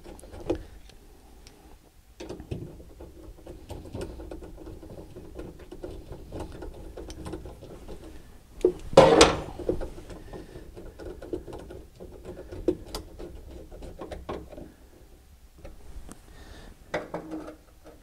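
A hand ratchet clicking as it drives a fastener down to hold the back of the center console in place. There is a brief louder sound about halfway through.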